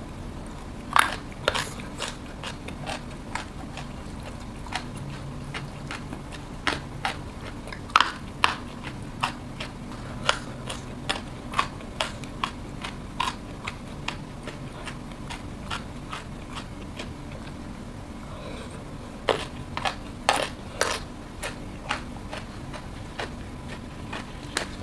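Close-miked eating sounds of a person biting and chewing crunchy raw vegetables, the lalapan of a Sundanese meal: sharp, irregular crunches and wet mouth smacks, bunched near the start, about eight seconds in, and around twenty seconds in. A faint steady low hum sits underneath.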